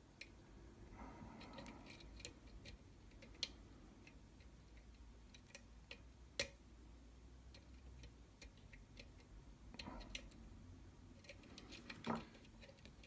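Small metallic clicks and scrapes of a lock pick and tension tool working the pins inside a Falcon challenge lock, scattered and irregular, with a few sharper clicks standing out.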